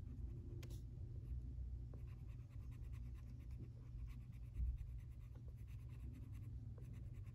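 Colored pencil scratching on paper in many quick, light strokes as a drawing is colored in. The paper rests on a tablet. There is a soft low bump about four and a half seconds in.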